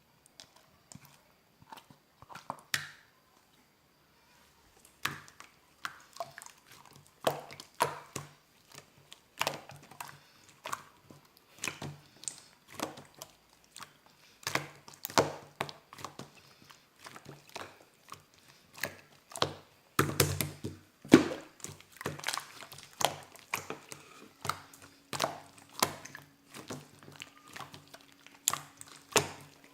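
Hands pressing, folding and stretching slime, making irregular sticky pops and clicks that are sparse at first and come thick and fast from about five seconds in.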